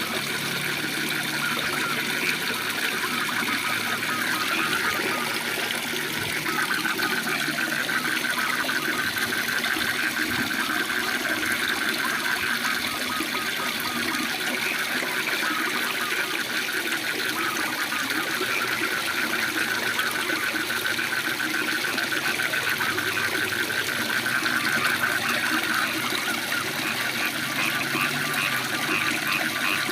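Waterfall rushing steadily, with frogs calling in a fast pulsing trill through most of it.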